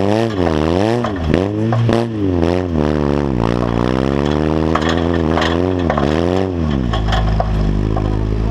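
Off-road buggy's engine revving up and down over and over as it is driven over a bumpy dirt track, then settling to a steady pitch about seven seconds in. Knocks and rattles from the buggy's frame jolting over the ground run under it.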